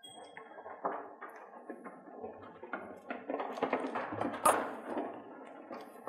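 Goat hooves and a man's footsteps knocking and scuffling on a raised wooden-slatted shed floor as the goats move about, busier in the second half, with one sharper, louder knock about four and a half seconds in.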